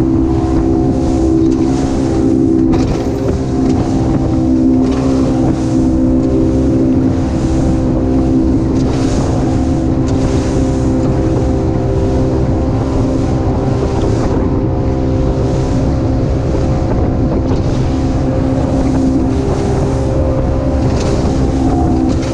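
Center-console motorboat under way at cruising speed: its engine runs at a steady pitch over water rushing along the hull, with wind buffeting the microphone.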